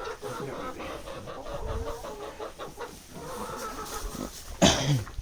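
Chickens clucking in quick repeated pulses, with a loud sudden burst of noise near the end.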